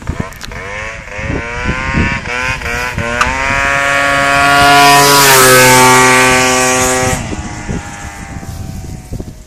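Piaggio Zip scooter with a Malossi MHR 180cc two-stroke kit accelerating hard toward and past. Its engine note climbs in pitch, is loudest as it passes about five seconds in, then drops in pitch and fades as it rides away.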